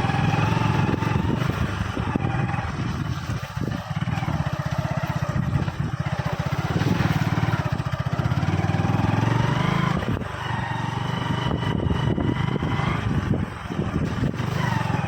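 Motorcycle engine running under load, its revs rising and falling with the throttle, with two brief drops in level.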